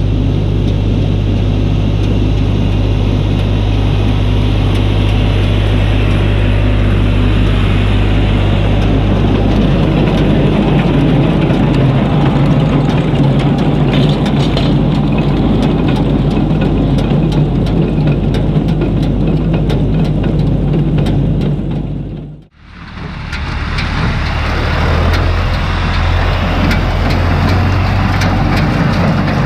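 John Deere tractor's diesel engine running steadily while pulling a small square hay baler. The sound dips out briefly about three-quarters of the way through, then comes back at the same level.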